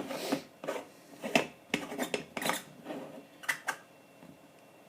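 Stovetop moka pot being screwed together: metal scraping and clinking of the upper chamber on the base, a run of short clicks and scrapes that dies away after about three and a half seconds.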